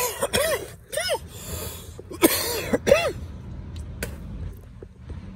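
A man coughing in a series of short, harsh coughs over the first three seconds or so, the cough of someone who has just been inhaling smoke.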